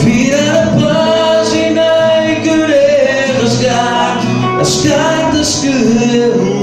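A man singing into a microphone over a backing track, drawing out long held notes between lines of the song.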